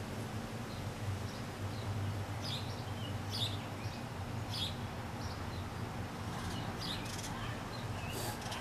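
Bird chirps, short and spaced out every second or two, over a steady low background hum.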